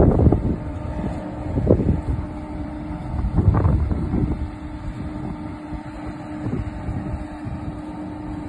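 Engine of a mobile crane running steadily, with gusts of wind buffeting the microphone at the start and again about three and a half seconds in.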